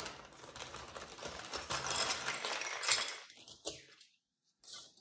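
Rustling and light clicking of small plastic kit parts and their packaging being handled, dying away a little after three seconds.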